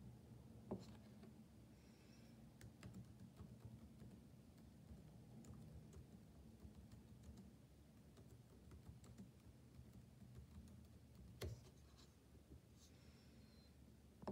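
Faint clicks and taps of a computer mouse and keyboard over a quiet room hum. One sharper click comes about eleven seconds in and another near the end.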